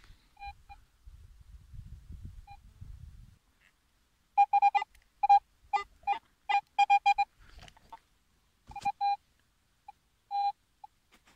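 Metal detector giving short, same-pitched beeps in quick clusters as soil is passed over its search coil and the coil is swept, signalling a metal target in the soil. Faint low rustling comes before the beeps in the first few seconds.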